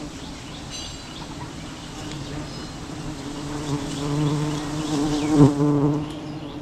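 Many wild honeybees buzzing in a steady, droning hum, the bees stirred up as their hive is cut for honey. The buzz swells louder about halfway through, with a brief louder surge about five seconds in.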